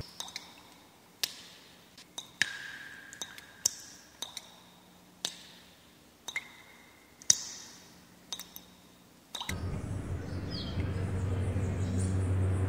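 Sparse, irregular glassy pings and clinks, each fading quickly, a couple ringing on as a short high note. About three-quarters of the way in, a steady low hum swells up underneath.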